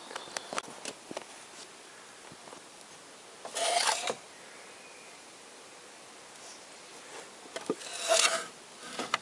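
Two short rubbing, scraping sounds about four seconds apart, with a few light clicks in the first second.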